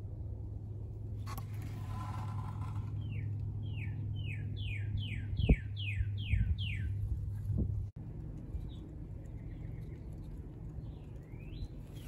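Northern cardinal singing: a run of about ten clear whistled notes, each sliding down in pitch, growing louder through the series and then stopping. A low steady hum lies underneath, with a single thump about halfway through.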